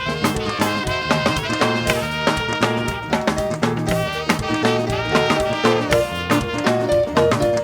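Live band music with horns over a steady drum beat.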